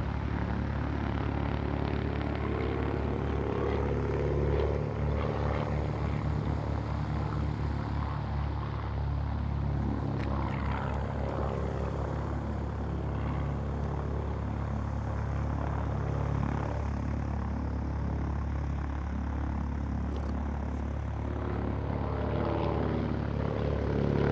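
A Klemm 35D's single propeller engine runs steadily throughout. Its pitch glides up and down a few times, around 4–6 seconds in, around 10 seconds, and again near the end, as the plane's distance and heading change.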